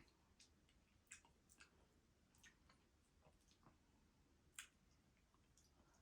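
Faint, scattered mouth clicks and soft chewing of someone eating lobster tail, a few isolated clicks spread through an otherwise near-silent stretch.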